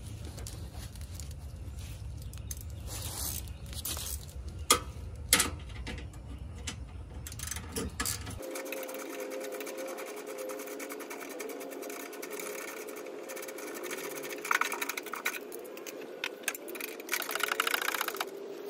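Steel bracket being handled and test-fitted against a car's front-end radiator support: metal clanks, two sharp ones about five seconds in, with a burst of rapid metallic clicking near the end.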